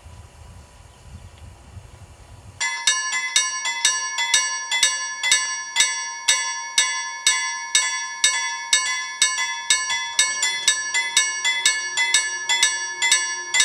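Railway level crossing warning bell switching on suddenly about two and a half seconds in and ringing steadily at about three strikes a second as the crossing activates for an approaching train. Before it, only a low wind rumble on the microphone.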